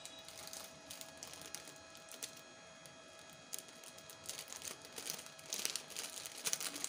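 Crinkling and rustling of a plastic packet being handled, busiest about five to seven seconds in, over a faint steady hum.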